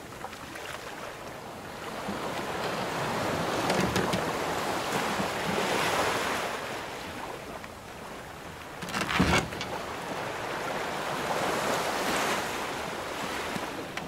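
Ocean waves washing in slow swells with some wind. About nine seconds in there is a single sudden loud knock, the kind of sound a wooden ship's hull or timbers make.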